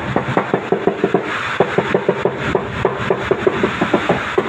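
Rubber mallet tapping a ceramic wall tile in quick light knocks, about six a second, with a short pause about a second in, bedding the tile into its adhesive. A steady hiss runs underneath.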